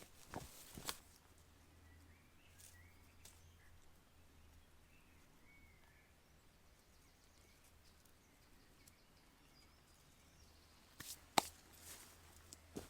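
Near-quiet woodland with a few faint bird chirps, broken by two sharp clicks or snaps in the first second and a short cluster of louder clicks about eleven seconds in.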